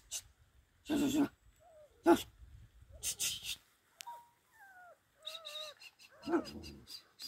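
A dog giving single short barks, about one, two and six and a half seconds in, with short falling whine-like calls between them.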